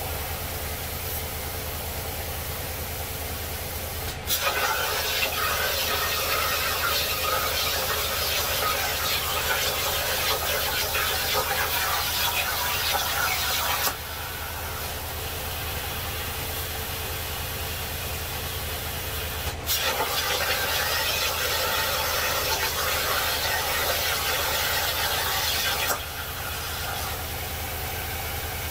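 Jasic Cut 45 plasma cutter on a homemade CNC table cutting sheet steel: the plasma arc comes on abruptly as a loud, harsh hiss for about ten seconds, cuts off, then strikes again about six seconds later for another six seconds or so. A steady machine hum runs underneath between cuts.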